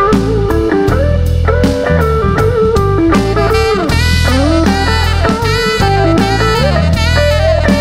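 Live band instrumental break: a saxophone solo with bending, gliding phrases over electric guitar, electric bass and a steady drum-kit beat.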